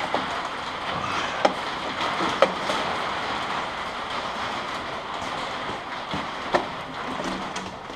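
Sharp clicks and clinks of tools and exhaust parts being handled, three of them louder, about a second and a half, two and a half and six and a half seconds in, over a steady background hiss.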